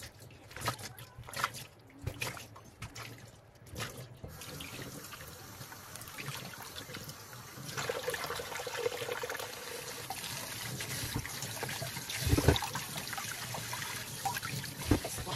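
Kitchen tap water rinsing bamboo shoots in a stainless steel sink. For the first few seconds there are scattered small splashes and drips from handling. From about four seconds in the tap runs steadily, pouring over a shoot held in the hands and into a metal bowl. About twelve seconds in there is one louder knock.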